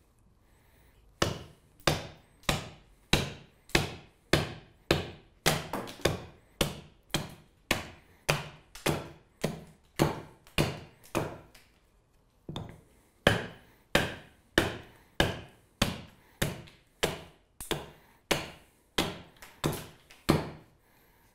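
Carving axe hewing an alder spoon blank on a chopping stump: a steady run of sharp chops, a little under two a second, starting about a second in, with a brief pause about halfway before the chopping resumes.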